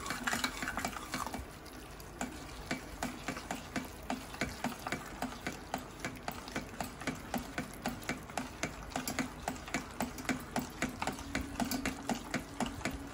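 A steel ladle stirring and scraping a thick masala gravy in a stainless steel kadai, clicking against the pan about three times a second, as the spiced onion-tomato masala is fried with curd.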